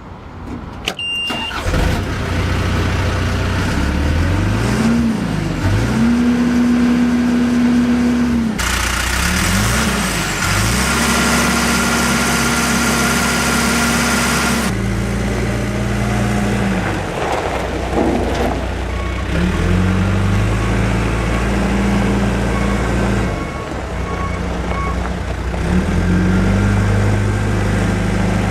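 John Deere 310SG backhoe loader's diesel engine running, revved up and held several times and falling back toward idle in between. A steady hiss rides over the engine for several seconds in the middle.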